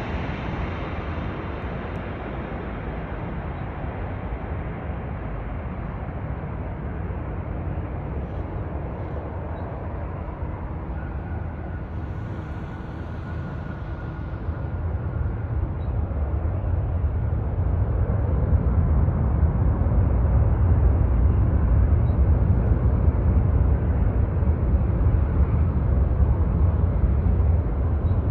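Steady low rumble from an Airbus A350-941 airliner, growing louder about two-thirds of the way through.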